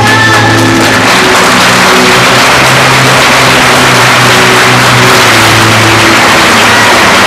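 Stage soundtrack: sustained low music tones with a loud, steady rushing noise that swells in about a second in and stays.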